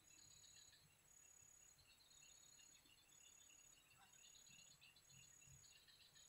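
Faint insects calling in near silence: a high buzzing trill that repeats about once a second, over softer pulsing chirps.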